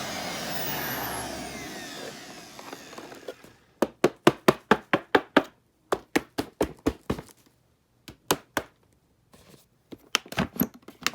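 Vacuum cleaner motor winding down after being switched off, its whine falling away over the first few seconds. Then a series of sharp knocks and clicks in quick runs of about five a second, with pauses between the runs.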